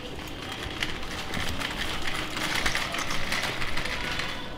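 Wire shopping cart rattling as it is pushed across a tiled floor: a steady run of many small metallic clicks from the wheels and basket.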